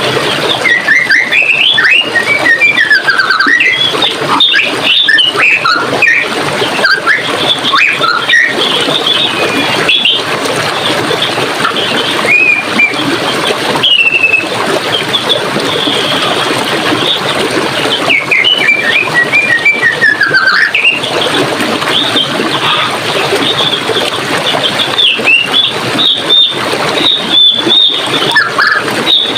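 Birds singing and chirping, with many short rising and falling phrases overlapping, over a steady rush of running water.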